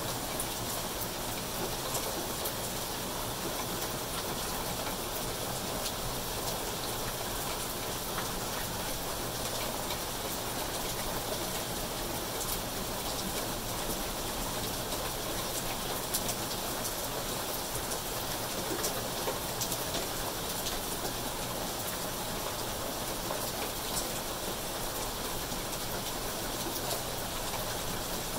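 Steady heavy rain falling on foliage and pavement, an even rushing hiss with scattered sharp taps of drops landing close by.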